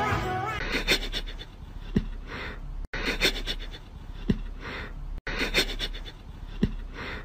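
An animal's breathy huff, with scratchy clicks and a soft knock just before it. The same short bit plays three times over, cut off abruptly each time.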